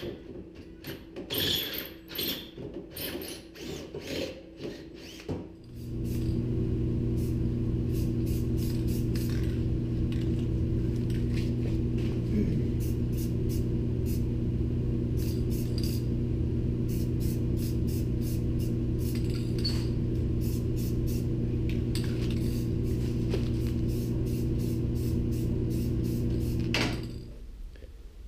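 Electric drill boring holes through a welded steel bracket in short on-off bursts. At about six seconds a steady low hum with a few fixed pitched tones takes over and holds at an even level until shortly before the end.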